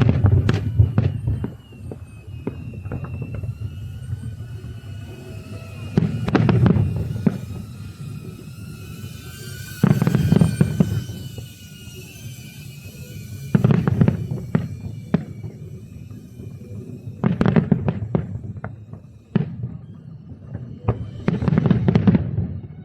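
Aerial fireworks shells bursting: a series of about six loud booms a few seconds apart, each followed by crackling.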